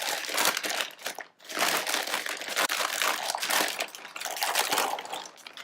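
Packaging crinkling and rustling as a replacement vacuum main body is unwrapped, with a brief pause about a second in.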